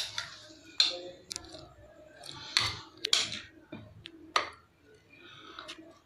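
A spoon clicking and scraping against a glass bowl as chopped fruit is spread over a layer of custard, in scattered sharp ticks and short soft scrapes.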